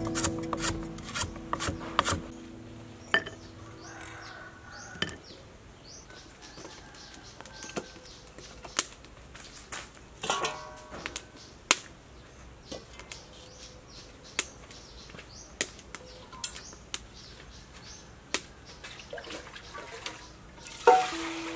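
A cleaver chopping a root on a wooden board in quick strokes for the first few seconds. Then come scattered sharp crackles and clicks from a wood fire. Near the end there is a loud clatter of a metal pot or wok.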